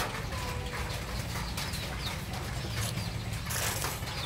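Young chickens giving soft clucks and faint short peeps, with a brief rustle about three and a half seconds in, over a steady low rumble.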